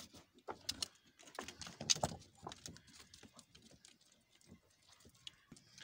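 Goat hooves stepping over loose rocks: irregular clicking and knocking of hoof on stone and stones shifting, busy for the first few seconds, then sparser.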